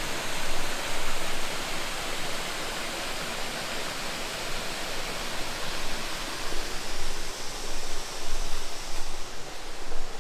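Cascading water rushing steadily, a continuous full hiss of falling water.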